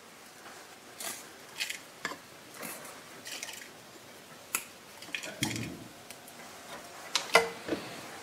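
Fresh rosemary sprigs rustling and crackling as their leaves are stripped off by hand into the plastic bowl of a mini food processor: a run of short scratchy strokes, a dull bump about five seconds in and a sharper knock about seven seconds in.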